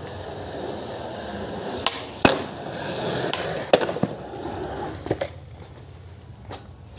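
Skateboard rolling on concrete, its wheel noise growing louder as it approaches and dropping away after it passes, with several sharp clacks of the board, the loudest a little over two seconds in.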